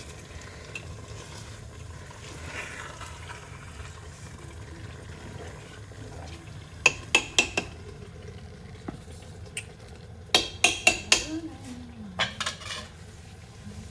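A spoon stirring in a cooking pot and knocking against its side, in three quick runs of sharp clinks, over a steady low hum.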